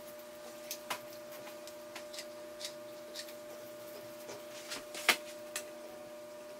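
Scattered light clicks and rustles of hands handling wreath-making craft materials, with a sharper click about five seconds in, over a steady electrical hum.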